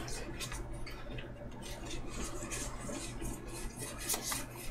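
Trading cards being flipped through and handled: faint rustling with small clicks and snaps, a few louder ones about four seconds in.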